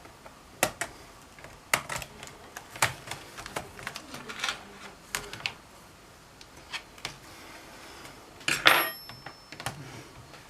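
Plastic clicks and snaps of a Dell Inspiron 5559's keyboard being pried and pulled up from the laptop's top case, its retaining clips letting go. Scattered clicks, with a louder cluster of snaps near the end.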